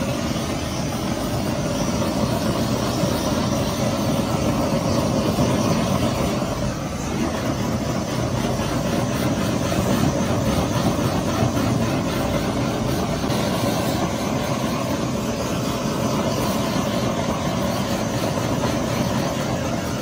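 Handheld gas blowtorch flame running with a steady hiss as it melts grated cheese on a foil tray.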